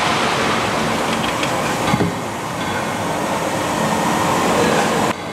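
Automatic carton packer and its conveyor line running with a steady mechanical din, with a single knock about two seconds in.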